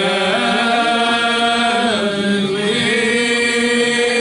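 Voices singing a gospel hymn, holding long steady notes that change pitch every second or two.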